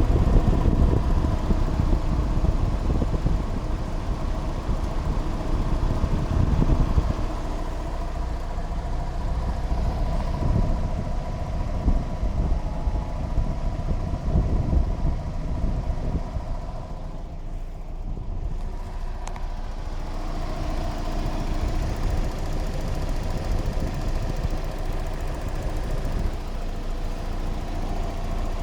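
Mazda Miata four-cylinder engine running steadily with a ticking from the left side of the engine, which the owner suspects may come from the hydraulic lash adjusters (valve tick).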